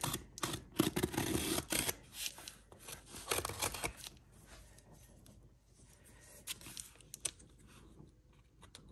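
Hands handling a taped cardboard shipping box and a pair of scissors: a busy run of rustles and light clicks for about four seconds, then only a few soft clicks.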